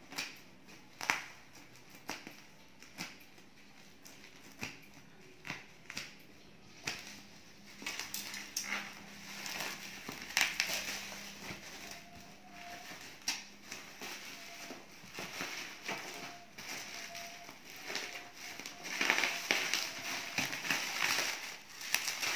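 Scissors snipping through bubble wrap packaging, a sharp snip about once a second, followed by plastic bubble wrap and cardboard crinkling and rustling as the parcel is pulled open by hand, loudest near the end.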